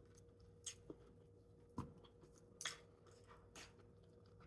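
Faint chewing while eating, with about five soft, short clicks and smacks spread through it, over a faint steady hum.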